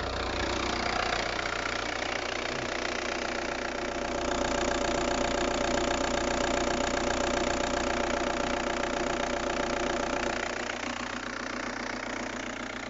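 Opel Astra G's 1.7 Isuzu turbodiesel idling steadily after a fresh start, the non-start fault (a bad solder joint feeding power to the injection pump controller) now fixed. It grows louder for several seconds in the middle, then eases.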